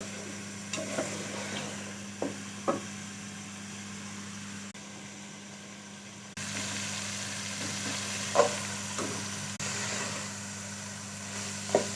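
Food frying in a pan with a steady sizzle, and a utensil knocking against the pan about six times as it is stirred. A low steady hum runs underneath.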